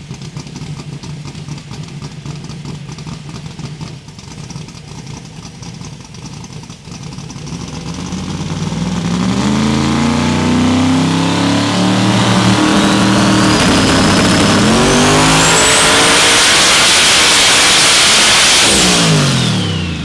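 Twin-turbo Proline 481X V8 in a Camaro running at a steady low note, then from about eight seconds in revving hard into a loud full-throttle pull, with a high whine climbing over it. Near the end the revs fall away sharply.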